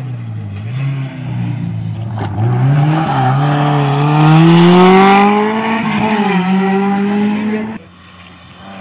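Classic Alpine A110 Berlinette rally car's engine pulling hard past at high revs. Its note climbs steadily as it accelerates in one gear, with a brief dip about six seconds in. The engine sound cuts off suddenly near the end.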